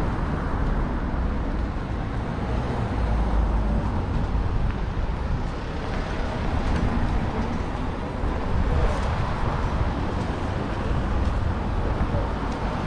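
Steady road traffic noise: a continuous low rumble of cars passing along a busy street.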